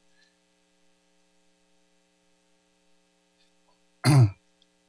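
Near silence with a faint steady electrical hum for about four seconds, then one brief, loud throat clear from a person near the end.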